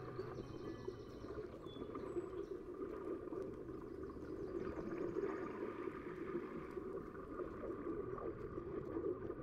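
Steady, muffled rushing of water heard through an underwater camera.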